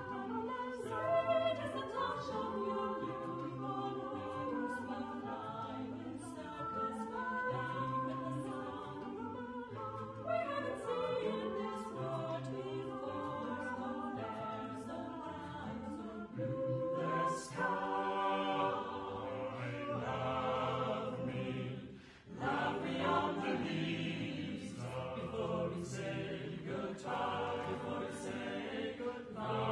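Small mixed vocal ensemble singing a cappella in several-part harmony, with a short break in the singing about two-thirds through.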